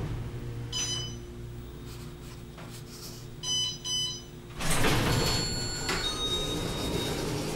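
Inside an elevator car, a steady low hum, with a short electronic chime about a second in and two more quick chimes a little past the middle. Then the elevator's sliding doors open with a louder rush of noise for the last few seconds.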